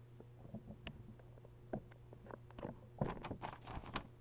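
Faint handling noises: scattered soft clicks and rustles as the printed manual and camera are moved about, a few sharper taps in the last second or so, over a steady low hum.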